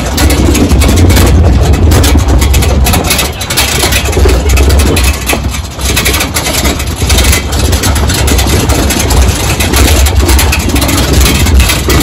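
Jungle-safari vehicle driving fast over a rough mountain track: a loud, heavy low rumble with constant rattling and buffeting, dipping briefly a little past halfway.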